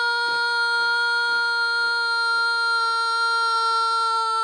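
A single long musical note held steady, sinking very slightly in pitch. Under it, the footsteps of a column of marching men fall about twice a second and fade out partway through.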